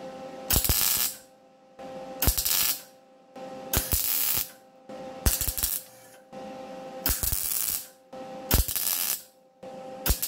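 Wire-feed (MIG) welder laying short spot welds on the sheet-steel air cleaner housing: about seven brief arc bursts, roughly one every second and a half, with a steady hum between them.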